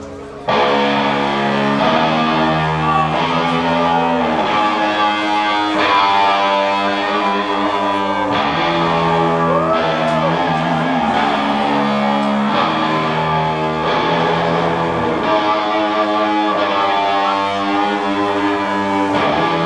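Live doom metal band playing loud electric guitars and bass in slow, held chords. The full band kicks in suddenly about half a second in, and there are a few bending, sliding guitar notes along the way.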